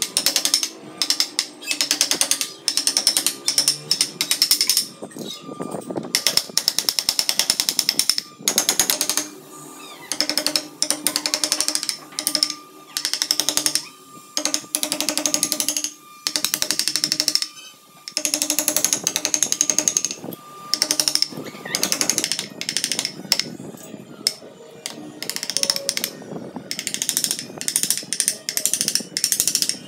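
Rapid taps of a wooden mallet driving a carving chisel into wood, in quick runs of a second or two with short pauses between.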